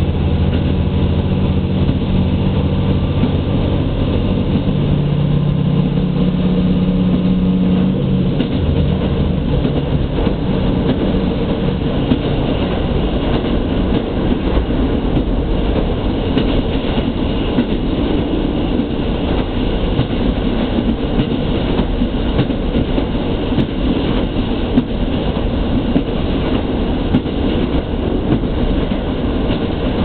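Diesel railcar running along the Sekihoku Line, heard from inside the cabin: a steady low engine note for the first eight seconds or so, then the engine note drops away and the rumble of the wheels on the rails carries on.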